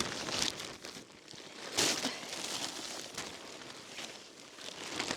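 Footsteps crunching in snow, irregular crunches with the loudest about two seconds in.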